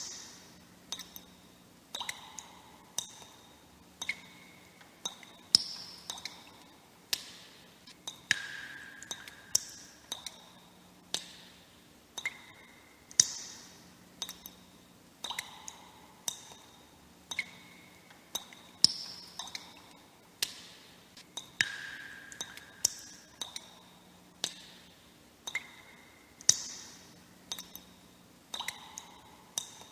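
Water droplets dripping into water, one or two drops a second at an uneven pace. Each drop is a sharp plink with a short ringing tone that dies away quickly, its pitch changing from drop to drop.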